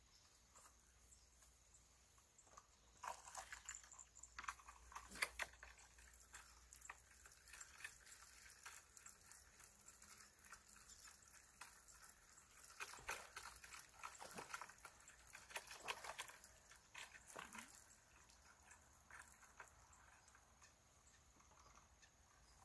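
Near silence: quiet outdoor ambience with faint, scattered ticks and rustles, a little busier around three to six seconds in and again around thirteen to sixteen seconds in.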